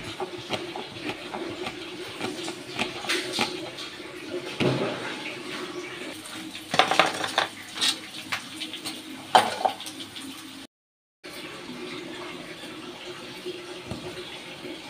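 Kitchen handling noises: a knife tapping on a wooden cutting board, then clinks and knocks of dishes and bowls, over a steady low hum.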